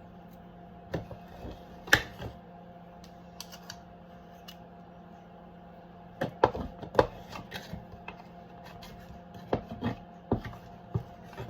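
Metal spoon clinking and knocking against a mixing bowl and cake tray as cake batter is spooned into cases, in three short clusters of sharp knocks.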